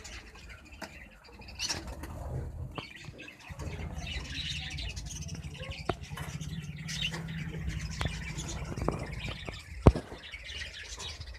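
Small pet birds chirping and squawking, with some wing flapping. A low steady hum comes in a few seconds in, and there is one sharp click near the end.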